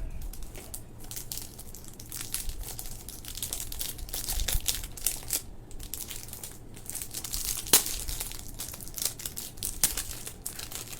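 Delivery packaging crinkled and torn open by hand: irregular crackling and rustling throughout, with one sharp snap a little past two-thirds of the way through.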